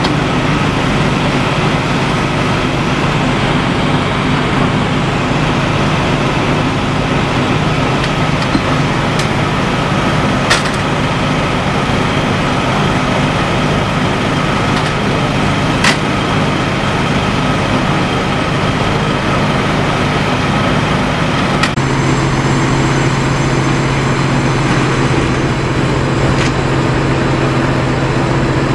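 Fire engine's diesel engine running steadily close by, a loud constant drone. About 22 s in the drone changes abruptly to another steady engine note, and a couple of sharp clicks sound around the middle.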